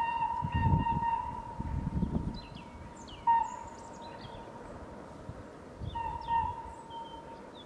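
A historic train fading into the distance: its steady high whistle tone and low rumble die away over the first two seconds, and the tone comes back briefly about three seconds in and again about six seconds in. Small birds chirp in the second half.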